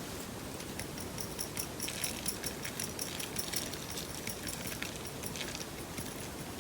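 Paper clay slime being squeezed and worked by hand, giving a rapid run of small sticky clicks and pops that thin out near the end.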